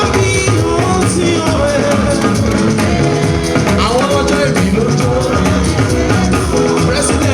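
Loud music with singing over a steady beat of drums and percussion.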